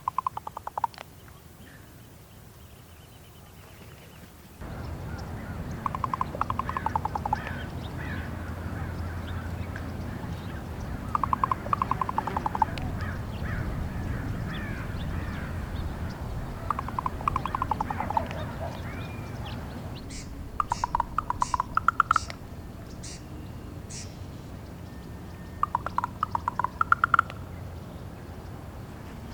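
Female raven giving repeated clicking calls: quick trains of clicks, each about a second long and rising slightly in pitch, about every five seconds.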